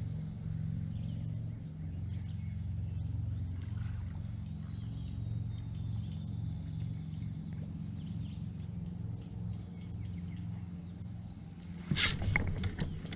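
A steady low mechanical hum from the fishing kayak. Near the end comes a sudden burst of sharp clattering as the rod is swept up to set the hook on a bass.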